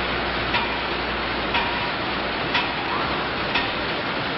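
Factory packaging machine clacking about once a second, with a steady hiss underneath.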